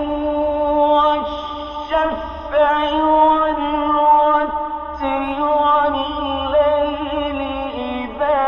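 Male voice chanting Quranic verses in the slow melodic mujawwad style, drawing out long ornamented notes with short breaks between phrases.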